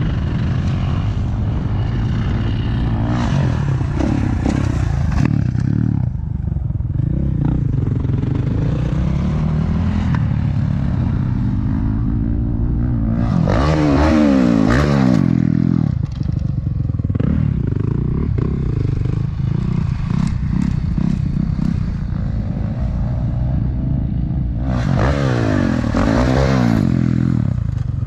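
Dirt bike engine revving and letting off again and again as riders hit jumps, with two loud full-throttle pulls, one about halfway through and one near the end.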